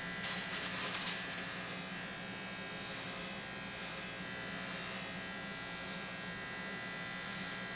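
Remington electric hair clippers running with a steady buzz, with short rasping bursts as the blades cut through hair.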